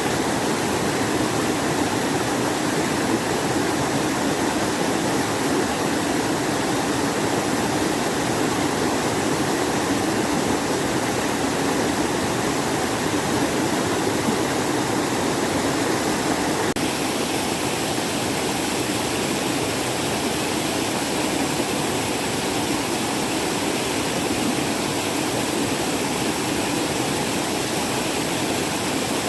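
Mountain stream water rushing steadily over rocks, a dense continuous rush that shifts slightly in tone a little over halfway through.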